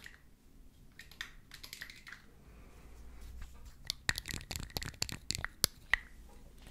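Fingernails tapping on a small capped glass bottle of liquid held close to the microphone: light, sharp clicks, a few scattered at first, then a quick dense run of taps in the second half.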